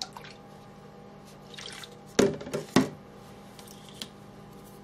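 Water splashing as a paintbrush is dipped in a small cup of water, with two sharp knocks a little over two seconds in, about half a second apart.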